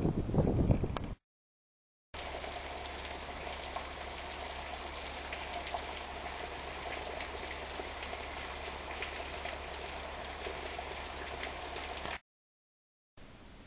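Steady, even hiss of rain falling, with fine pattering crackle and a faint low hum beneath it. About the first second is louder gusty wind noise on the microphone, cut off by a short break before the rain hiss begins.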